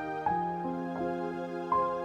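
Slow instrumental background music with held notes, a new note struck every second or so.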